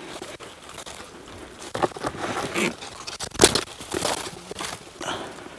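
Crunching and rustling of a person moving close to the microphone over dry debris, irregular and loudest in the middle, with one sharp knock about three and a half seconds in.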